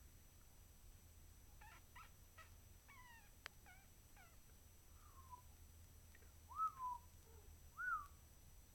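Cats mewing softly: a run of short, quiet mews and chirps, then two louder rising-and-falling meows near the end. A single sharp click comes a little past a third of the way in.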